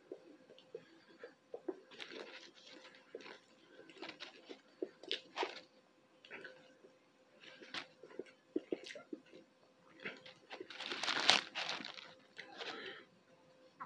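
A person chewing a fried chicken sandwich on waffle buns: faint, irregular crunching and mouth clicks, with a louder, longer noisy stretch about eleven seconds in.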